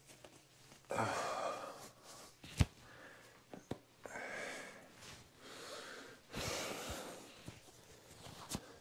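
Person breathing heavily, three long noisy breaths, with a few sharp clicks in between.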